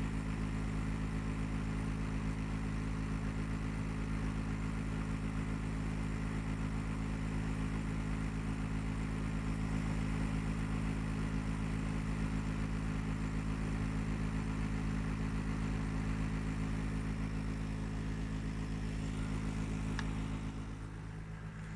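Gree air conditioner running with a steady mechanical hum and a rough noisy whir over it: the abnormal loud noise the unit is making. About twenty seconds in there is a click, then the higher noise fades and the hum drops a little.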